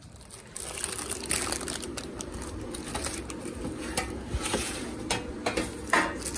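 Handling noise: baking paper crinkling and the pan and plate clicking, with a louder clink near the end.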